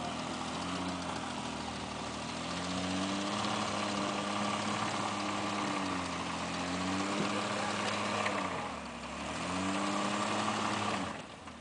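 Off-road truck engine working under load, its pitch rising and falling several times as the throttle is worked, over a steady noise of the drive. The sound drops away abruptly near the end.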